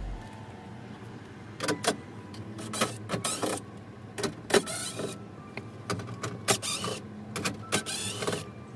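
Irregular clicks and clunks of work on a car door's window hardware over a faint steady hum.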